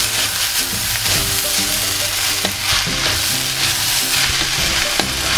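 Chopped onions and shallots sizzling in hot coconut oil in a clay pot while being stirred with a wooden spatula, the onions sautéing until soft. A couple of sharp knocks of the spatula on the pot, about two and a half and five seconds in.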